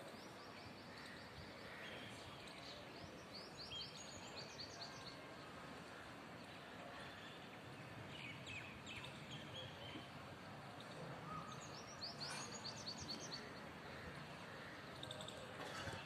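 Steady outdoor background hiss with small birds chirping: short, quick runs of high notes about three to five seconds in, again around eight seconds and around twelve seconds.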